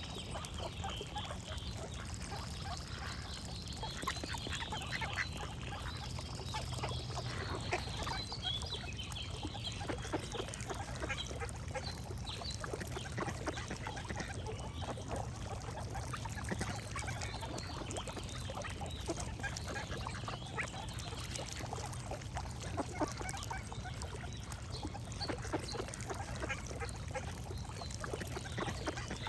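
A flock of ducks quacking continuously, with geese honking now and then, over a steady low rumble. A few high, held songbird notes sound in the first several seconds.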